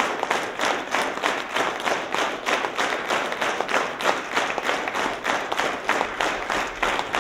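Theatre audience applauding, clapping together in a steady rhythm of about three claps a second.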